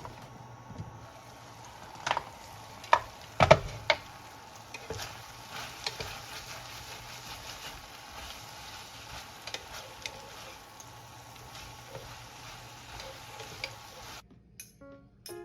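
Food frying in a pan with a steady sizzle while a utensil stirs it, with a few sharp knocks of the utensil against the pan about two to four seconds in. The sizzle cuts off about a second before the end.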